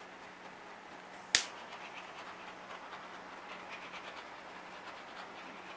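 A sharp click about a second in, as a handheld butane torch is lit, then the torch's faint, steady hiss as it is passed over wet acrylic paint to pop the air bubbles in it.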